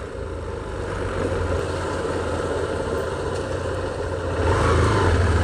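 Motorcycle engine running steadily under way, with road and wind noise; it grows louder about four and a half seconds in. The bike is a Hero Hunk, a single-cylinder commuter motorcycle.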